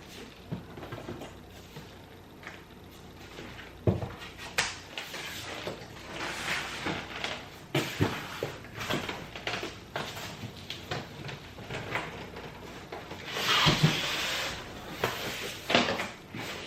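Household handling noises as items are unpacked: scattered knocks and clicks, with a longer rustling scrape about fourteen seconds in.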